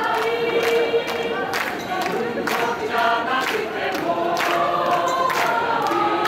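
High school wind band members singing in chorus, moving through a melody in held notes with crisp consonants.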